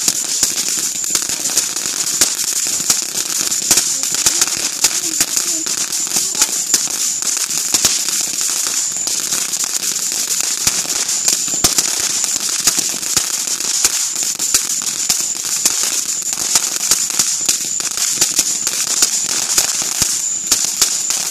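A consumer firework crackling and popping continuously, with dense rapid crackles over a steady high hiss.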